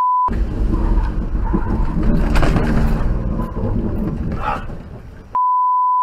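Inside a car driving on a rain-soaked road: a steady low rumble and hiss of tyres and rain on the wet surface. A flat one-tone censor bleep sounds briefly at the very start and again from about five seconds in.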